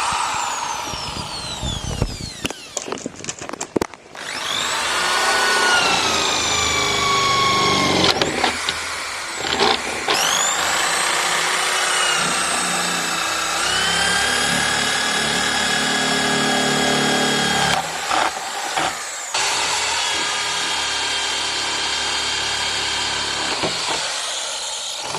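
Handheld power tool working on thick discarded water pipe. Its motor whine rises and falls in pitch several times as it is loaded and eased off, with a rough scraping start and brief drop-outs near the end.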